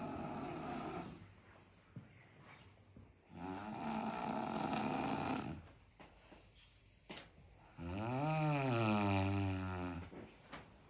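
Snoring at a slow breathing pace: one snore ends about a second in, another comes near the middle, and a third near the end is deeper and clearly pitched, rising and then falling in pitch.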